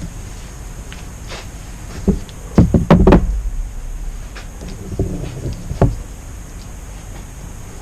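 A few dull knocks and thumps of hard objects bumping on a work surface, a cluster of them about two to three seconds in and two more near five and six seconds.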